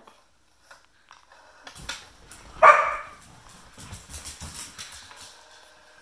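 A rotary telephone dial being turned and clicking as it spins back, with one short, loud cry about two and a half seconds in.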